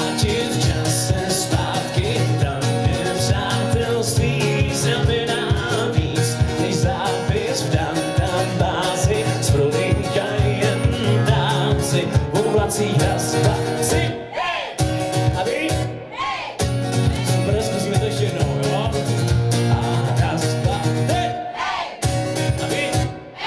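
Acoustic guitar strummed in a steady rhythm while a man sings over it, live on stage, with two brief drops about 14 and 16 seconds in.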